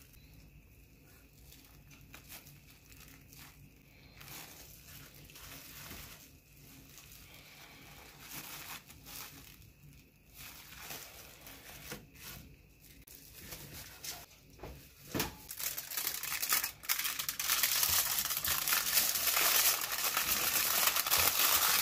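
Cling film and a bamboo sushi mat rustling softly with scattered clicks as a roll is rolled up. From about two-thirds of the way in, aluminium foil crinkles loudly and continuously as it is wrapped around the roll.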